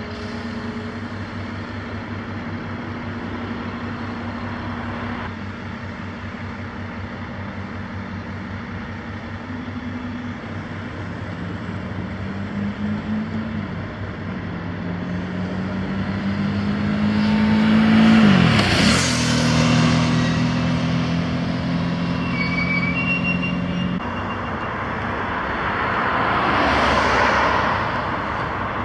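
Diesel engines running steadily. About two-thirds of the way through, a vehicle passes close by, getting louder and dropping sharply in pitch as it goes past. A second vehicle passes near the end.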